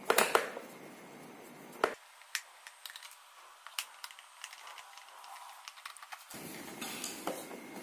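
Screwdriver unscrewing screws from a kid's electric scooter's plastic cover, with scattered light clicks and taps of tool, screws and plastic. A few louder sharp clicks come near the start and again about two seconds in.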